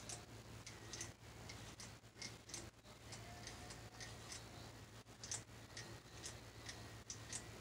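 Faint, short scratching strokes of a Gillette Fusion ProGlide razor cartridge scraping stubble off a shaved scalp, irregular, about two or three a second.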